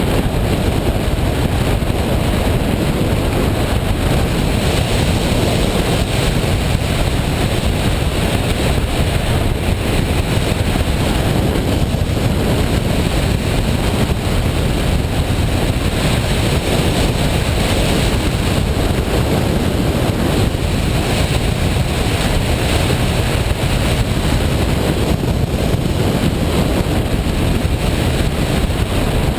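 Washing machine running with a loud, steady rumble.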